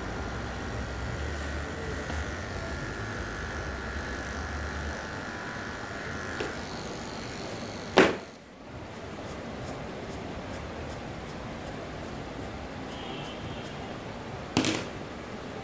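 Electric hair clippers buzzing steadily while cutting hair, stopping about six seconds in. A sharp knock about eight seconds in is the loudest sound, with another shorter knock near the end.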